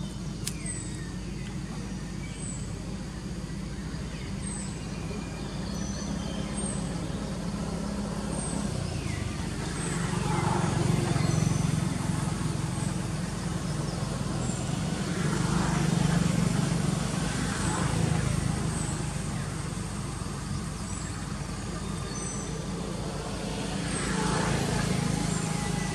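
Motor vehicles passing on a nearby road: a steady low engine and tyre rumble that swells and fades three times as vehicles go by. A short high chirp repeats about every two seconds over it.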